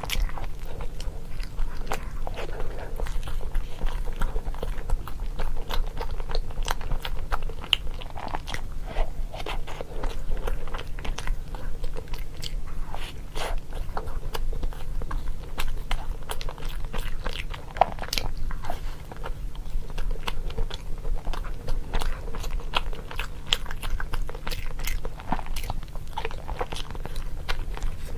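Close-up crunchy chewing and biting, a dense irregular run of sharp crackling crunches, several a second, over a faint low hum.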